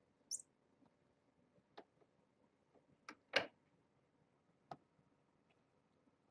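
A brief high squeak about a third of a second in, then a few scattered light clicks and taps, the loudest about halfway through.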